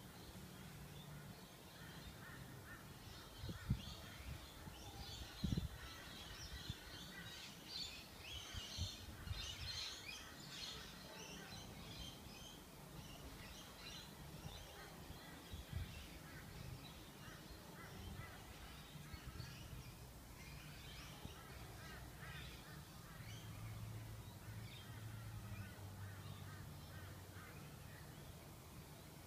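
Faint bird chirping and calling, busiest in the first ten seconds, over a low steady hum. Two dull thumps, about 4 and 5.5 seconds in, are the loudest sounds.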